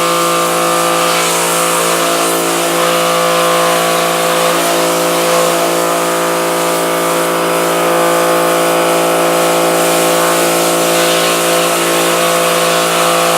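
Pressure washer running, its pump motor giving a steady hum under the hiss of the water jet as it sprays a screen-printing screen to blast out the emulsion.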